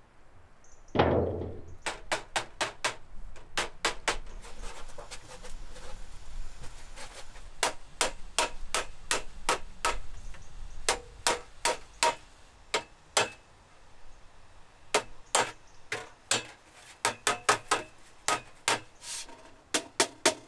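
A hammer striking a rolled sheet-metal pipe held over a stake, in quick irregular runs of sharp blows with short pauses. There is one louder metallic clang with a low ring about a second in.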